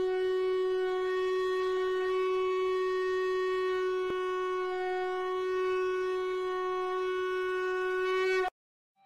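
Conch shell (shankha) blown in one long, steady note that cuts off suddenly near the end.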